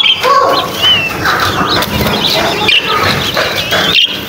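A flock of budgerigars chattering and warbling: a dense stream of short chirps that bend up and down in pitch, with wing flutters among them.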